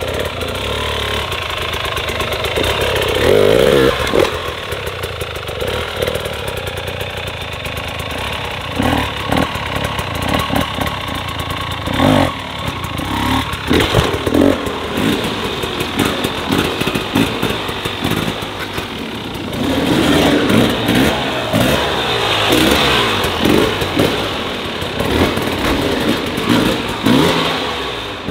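Dirt bike engine running with repeated throttle blips and revs: a strong rev a few seconds in, short sharp blips through the middle, and a quick run of revs in the last third.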